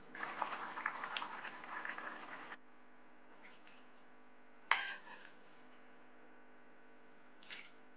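A ladle stirring and scraping stew in a wok, with clattering and small clicks, for about two and a half seconds, then stopping abruptly. About halfway through, a single sharp knock as stew is ladled into a clay pot, and a faint click near the end.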